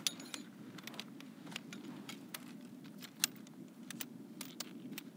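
Shock-corded tent pole sections clicking and clacking together as the poles are unfolded and snapped into place: a run of irregular sharp clicks over a steady low rumble.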